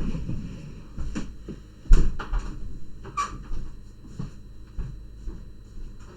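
Scattered knocks, clicks and thumps of things being moved or set down, the loudest a dull thump about two seconds in.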